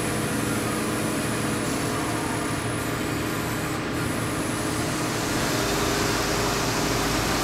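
Hardinge HC lathe with an OmniTurn CNC attachment running a motion demo cycle: a steady machine hum with a few steady tones, joined by a deeper hum and a new tone about five and a half seconds in.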